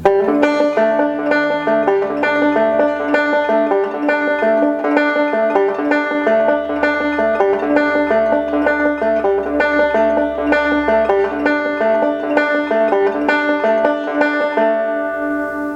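Banjo played in a fast fingerpicked roll, a steady stream of quick plucked notes that ends on a chord left ringing near the end.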